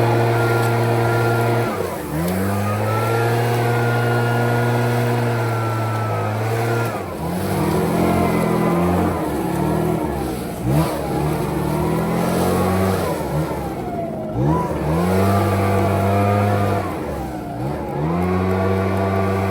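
Echo PB-9010T backpack leaf blower's two-stroke engine running at high revs, with the throttle let off and squeezed again several times so the pitch dips and climbs back, choppiest in the middle.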